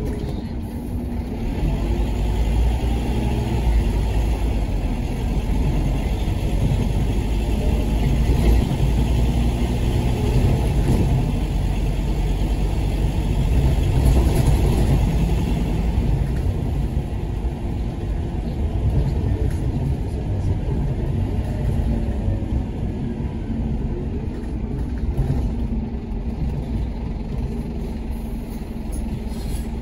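Scania K230UB Omnilink bus's rough-sounding engine and ZF Ecomat automatic gearbox, heard from inside the saloon while the bus drives. The sound builds toward the middle, then eases off over the second half as the bus slows.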